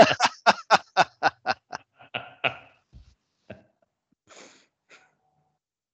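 A man laughing heartily, a quick run of about four 'ha' pulses a second that fades out after two and a half seconds, followed by a few faint clicks.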